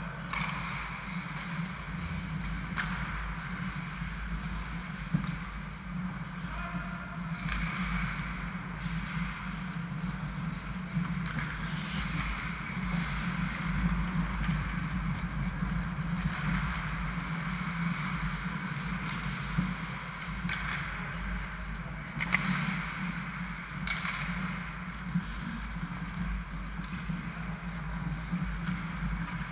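Ice hockey rink sound: a steady low mechanical hum under repeated scraping rushes of skate blades on the ice every few seconds, with a few sharp knocks, about five seconds in and twice near the end.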